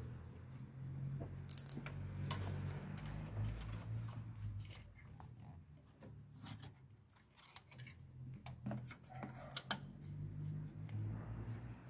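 Light metallic clicks and clinks, scattered irregularly over a steady low hum, typical of tools and parts being handled during a clutch master cylinder job.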